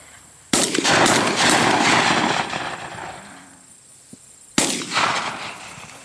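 Shotgun shots at doves: three quick shots about a second in, then a single shot near the end, each followed by a long rolling echo.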